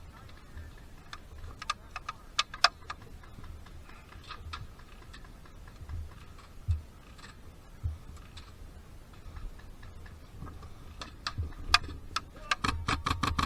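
Airsoft guns firing: scattered single sharp shots, then a rapid burst of about eight shots a second lasting a second or so near the end.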